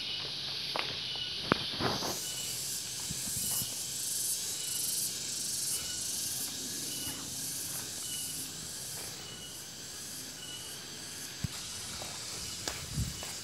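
Insects calling: a steady high hiss that grows louder about two seconds in, with a short high chirp repeating about once a second. A few footsteps thud now and then.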